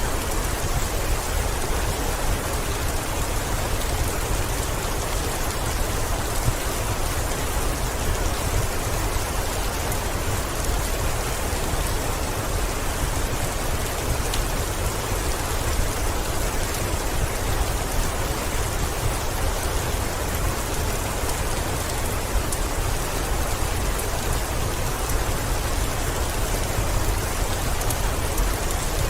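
Heavy rain falling steadily, with a deep low rumble underneath and a few faint sharp ticks scattered through.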